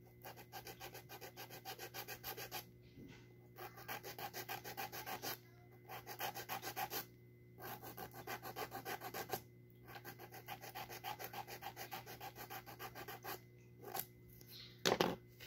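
Nail file rubbed back and forth across a fingernail in quick rasping strokes, about five a second, in bouts of a few seconds with short pauses between.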